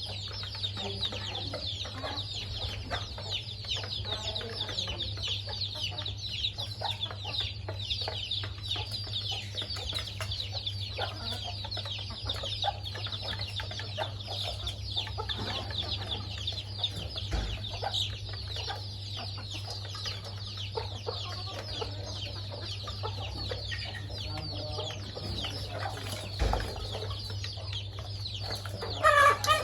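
A family of chickens, a hen with her chicks, clucking and cheeping without a break as they peck at food. A louder call rises and falls just before the end.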